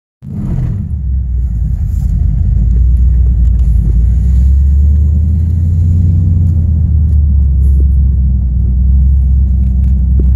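2006 Mustang GT's 4.6-litre V8, fitted with Hot Rod camshafts, idling steadily with a deep, even rumble, heard from inside the cabin.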